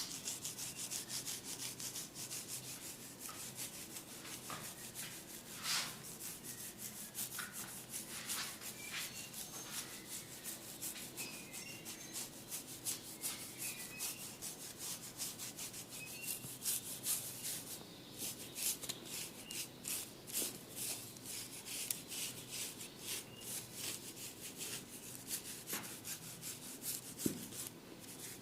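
Hair and scalp being rubbed briskly during a head massage: a rapid, steady run of rubbing strokes.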